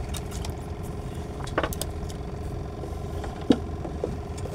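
Small air-cooled petrol engine on a wooden fishing boat idling steadily, with two short knocks, the louder about three and a half seconds in.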